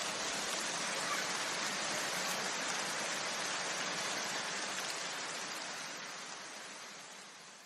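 An even hiss of noise, the tail of the electronic background music with its beat and tones gone, fading out over the last couple of seconds.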